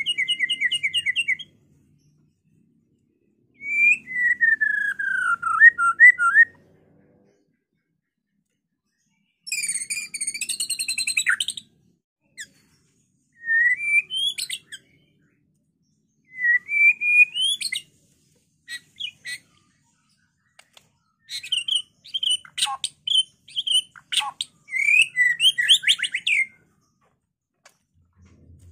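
White-rumped shama singing in full song: separate phrases of fast trills, falling whistled notes and sharp chips, with pauses of one to three seconds between them.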